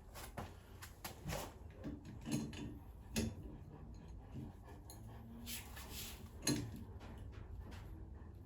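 Scattered knocks and clicks of handling, about five sharp ones, with a short scraping rustle a little past the middle.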